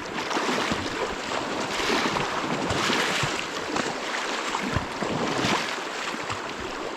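River current rushing steadily, swelling and easing, with wind buffeting the microphone in a few low thumps.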